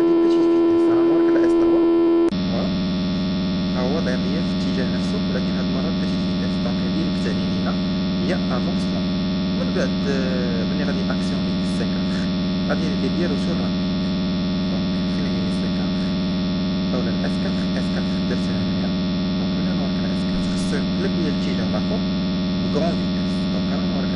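Steady electric hum of a simulated motor running in a circuit-simulation program. About two seconds in it switches abruptly to a lower, slightly quieter hum as the circuit changes over to another contactor.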